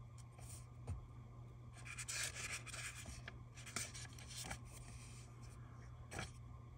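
Paper planner handled by hand: soft rubbing and rustling as stickers are smoothed down and a page is turned, with a few light taps.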